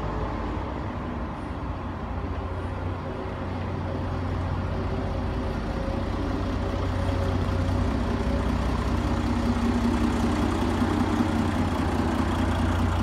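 Mercedes-Benz O405 city bus's OM447h horizontal six-cylinder diesel running as the bus drives slowly, a steady low hum that grows louder through the middle as the bus comes close.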